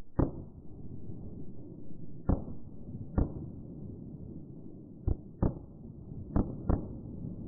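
A firework rocket's burst and crackling stars: about seven sharp pops at irregular spacing, two close pairs near the end, over a low, dull rumble of slowed-down sound.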